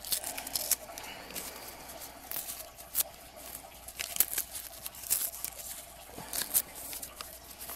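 Thin stamped newsprint being torn by hand, a run of short, irregular ripping and crinkling crackles.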